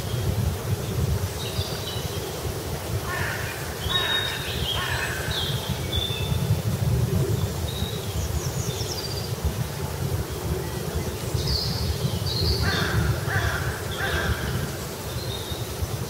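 Crows cawing in two short series, one a few seconds in and a run of three caws about three-quarters of the way through, with a few thin higher bird chirps. Under them is a steady low rumble.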